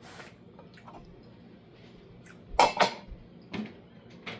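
A few short clinks and knocks of dishware, like a plate and utensils being handled. The loudest is a quick pair about two and a half seconds in, followed by two lighter taps.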